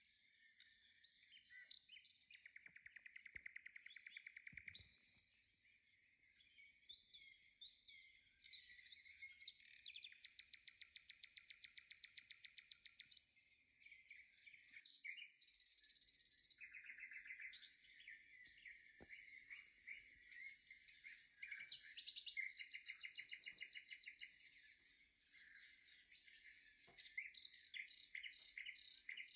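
Faint birdsong: high chirps broken by fast trills lasting two or three seconds each, several times over.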